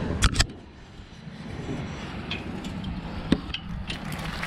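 Metal knocks and clanks of an air-cooled VW engine and its stand being heaved back upright by hand: two sharp knocks just after the start and another about three seconds in, with fainter ticks and low rumbling noise between.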